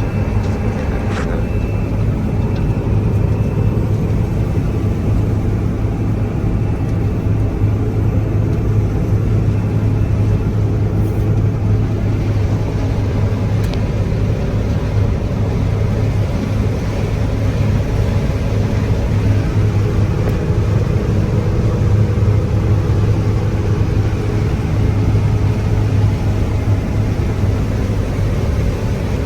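John Deere 9760 STS combine running steadily under harvest load, a constant low engine hum with an even rush of threshing and separating machinery over it.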